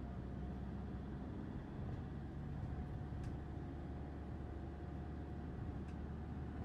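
Steady low rumble of engine and road noise heard from inside a moving car.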